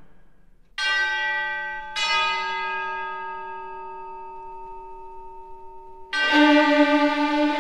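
Orchestral music: two struck notes about a second apart ring out and slowly fade, then a fuller sustained chord comes in about six seconds in.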